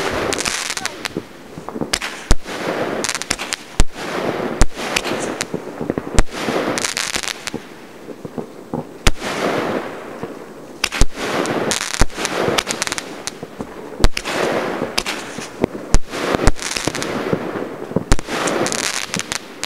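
Aerial fireworks going off: sharp bangs at irregular intervals, every second or two, with stretches of hissing between them.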